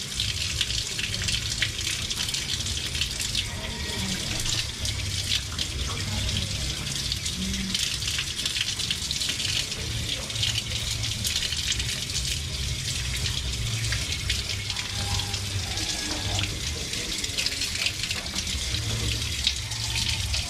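Water running steadily from a tap into a concrete sink, splashing over hands as something is rinsed under the stream.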